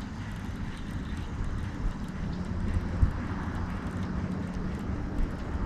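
A steady low engine drone with an even background hiss, and a couple of faint clicks.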